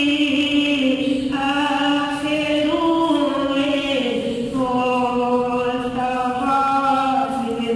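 A boy reciting a naat, unaccompanied Islamic devotional singing, his voice holding long notes that step up and down in pitch.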